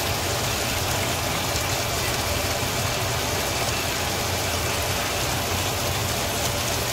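A steady low hum with an even rushing noise over it, unchanging, and no distinct clicks or beeps.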